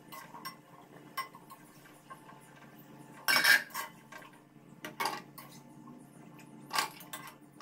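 A metal slotted ladle clinking and scraping against a kadai and a steel plate as fried sweet seedai are scooped out of the oil. The clinks are irregular, and the loudest comes about three and a half seconds in.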